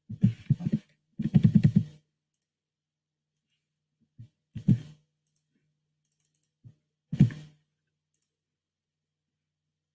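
Computer keyboard and mouse clicking: two quick flurries of key and button presses in the first two seconds, then two single mouse clicks about two and a half seconds apart.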